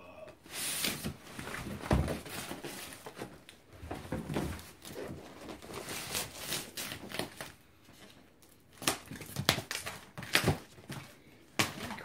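Cardboard boxes and packaging being handled and pulled apart: irregular scraping, rustling and crinkling, with several sharp knocks in the last few seconds.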